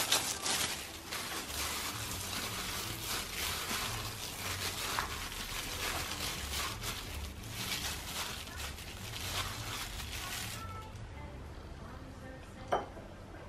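A hand in a disposable plastic glove mixing food in a plastic bowl: a dense crinkling, squishing rustle that stops about ten and a half seconds in, over background music with a steady low beat. A single sharp tap near the end.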